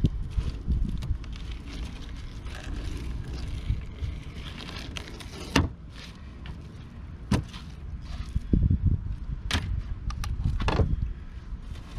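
Wind rumbling on the microphone, with a fillet knife slicing and scraping through a redfish fillet on a plastic cutting board and a few sharp clicks of the blade and board in the second half.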